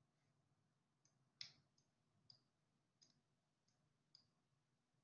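Near silence broken by about eight faint, light clicks of a pen stylus tapping a tablet screen while numbers are written in digital ink; the click about a second and a half in is the loudest.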